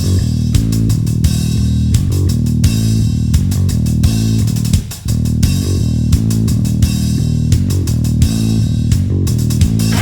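Background rock music with bass guitar, electric guitar and a steady drum beat.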